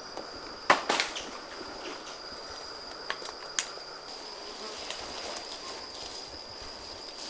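A jungle insect chorus holds one steady high-pitched whine. A couple of sharp cracks come about a second in, with a few fainter snaps a few seconds later.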